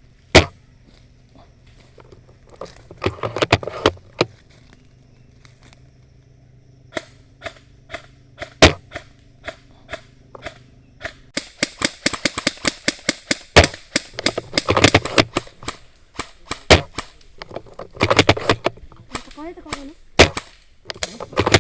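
Airsoft guns firing: sharp single shots and quick strings of shots, with a long stretch of rapid fire about halfway through.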